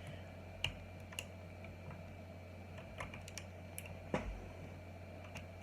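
Irregular sharp plastic clicks and taps from a Magicforce 68 mechanical keyboard with OUTEMU Blue switches as a keycap is pushed and tried on a switch. The loudest is a click with a low thump about four seconds in. A faint steady hum runs underneath.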